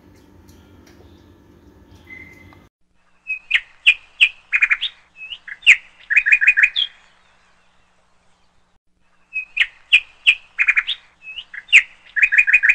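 Birdsong sound effect: two identical runs of quick, high chirps and trills, each about three and a half seconds long, separated by a short gap, following a couple of seconds of faint room hum.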